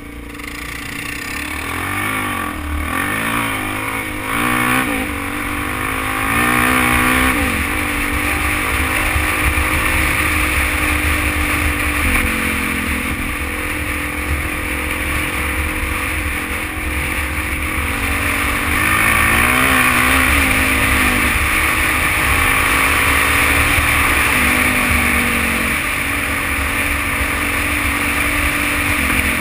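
Suzuki DR-Z400 single-cylinder four-stroke dirt-bike engine pulling under way, its pitch rising and dropping again and again as the rider accelerates and shifts gears. Wind rushes steadily over the microphone.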